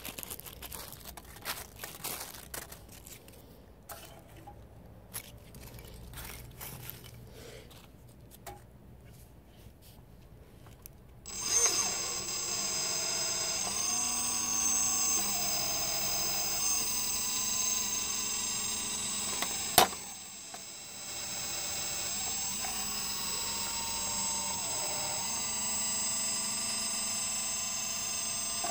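Hydraulic pump of a model Geesink Norba rear-loader garbage truck starting up about a third of the way in and running with a steady whine, its tone shifting in steps as the hydraulic cylinders drive the packer through its compaction cycle. Before it starts there are only light scattered clicks and knocks, and a single sharp click comes partway through the run.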